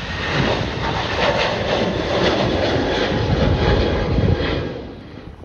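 Jet engines of a twin-engine airliner at takeoff thrust as it climbs away, a loud, dense rumble and hiss that drops away near the end.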